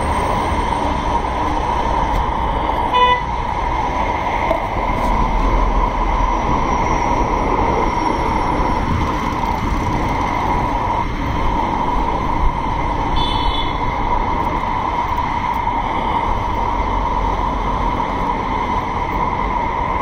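Steady vehicle and rail noise with a constant hum, and a short horn toot about three seconds in. A second brief, higher beep sounds around thirteen seconds in.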